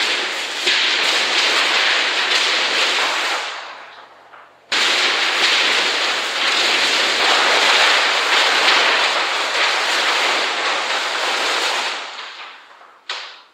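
Large sheets of black paper being crumpled, lifted and wrapped around a body, giving a loud, dense crackling rustle. The rustle fades out by about four seconds in, stops for a moment, resumes at about five seconds and runs until about twelve seconds, with one short burst of crackle near the end.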